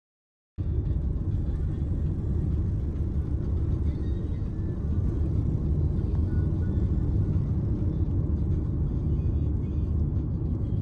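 Steady low rumble of a car driving, with road noise, starting abruptly about half a second in.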